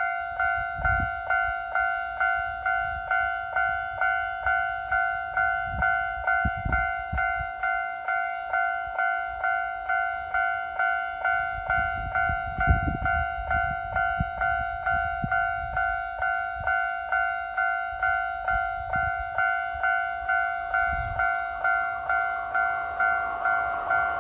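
Japanese railway level-crossing electronic warning bell sounding its repeated two-tone "kan-kan", about two strokes a second. Near the end a train's running noise begins to rise beneath it as the train approaches.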